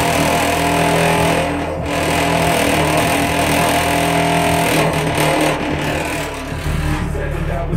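Deep, bass-heavy hip-hop beat played loud through four 12-inch Cerwin-Vega loudspeakers, with sustained low bass notes and no vocal. The lowest bass grows heavier near the end.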